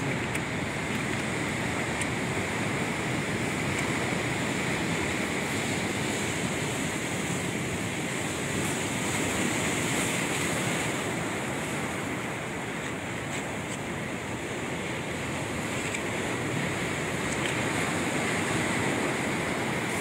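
Steady noise of sea surf washing onto the shore, swelling and easing slowly, with some wind on the microphone.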